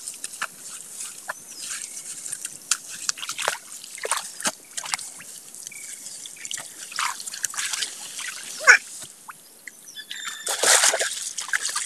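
Small splashes, drips and rustles of hands working in wet grass and mud at the edge of shallow muddy water, in many short sharp bursts. About ten seconds in, louder splashing of feet wading through the mud.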